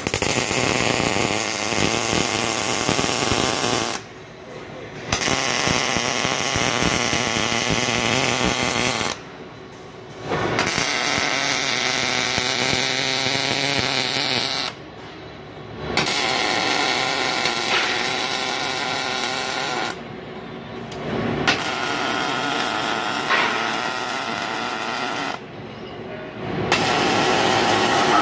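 Robotic MIG welding arc, slowed down by slow-motion playback: a dense, steady arc sound in runs of about four seconds, cutting out for about a second between welds, five times over.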